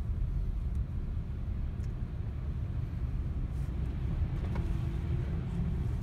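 Steady low rumble of a car's cabin while driving: engine and tyre noise from the road.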